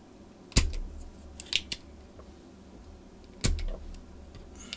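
Spring-loaded solder sucker (desoldering pump) firing twice, about three seconds apart, each a sharp snap followed by a short thud, with lighter clicks in between. It is sucking molten solder out of the through-holes of a just-removed transistor.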